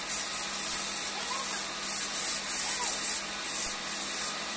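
Hand chisel cutting into a wooden blank spinning on a wood lathe: a high scraping hiss that swells and fades in uneven strokes, over the steady hum of the lathe motor.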